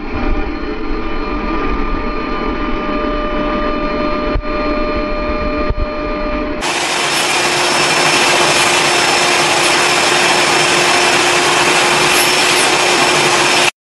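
Vacuum cleaners running steadily with a motor whine. About six and a half seconds in it cuts to a second, louder and brighter-sounding vacuum, which stops abruptly just before the end.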